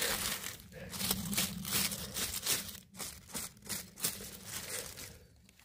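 Dry leaves and forest litter rustling and crackling as a porcini mushroom is picked and handled from the forest floor: irregular crunchy crackles that thin out near the end.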